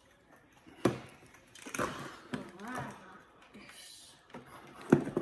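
Plastic clicks and knocks from handling a toy foam-dart blaster and fitting its ammo belt: a sharp knock about a second in and a louder one near the end, with fumbling between.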